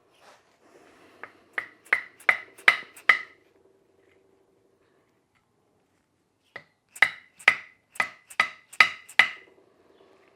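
Two runs of about six sharp metal-on-metal taps, roughly two a second, each ringing briefly, as from a hammer striking a metal part.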